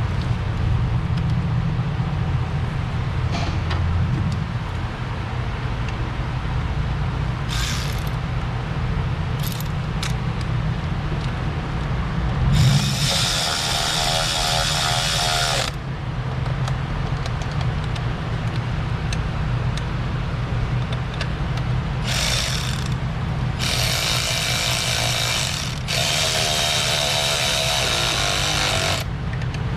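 Handheld power tool, such as a cordless ratchet, spinning fasteners in bursts: one run of about three seconds midway, then several longer runs near the end. A steady low hum sits underneath.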